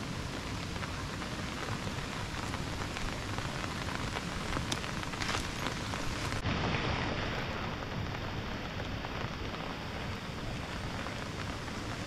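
Steady heavy rain falling as an even hiss, with a couple of short clicks about halfway through.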